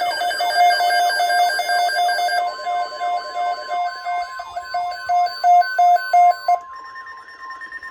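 Emergency weather alert tones start abruptly: a jumble of electronic beeping and rapidly repeating falling chirps that cuts off near the end. A single steady tone, the NOAA Weather Radio warning alarm tone, begins about two seconds in and keeps sounding.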